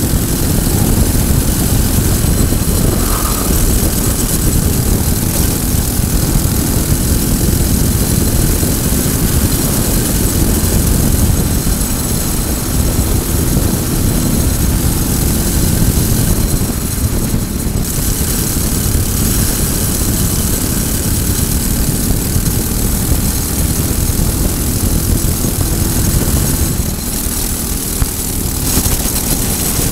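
Briggs & Stratton four-stroke single-cylinder kart engine running at race speed, around 4,600 to 5,000 rpm, with wind noise over the onboard microphone. The sound dips briefly near the end.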